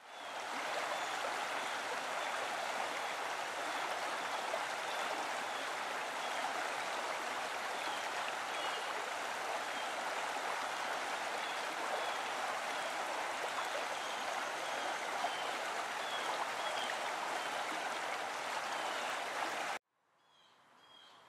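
Stream water rushing steadily, with faint short high chirps repeating at a steady pace above it; the water sound cuts off suddenly near the end.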